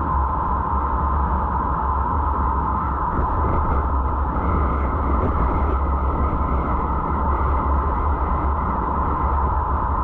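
Steady wind and road noise of a car driving, picked up by the dashcam, with a constant low rumble under it.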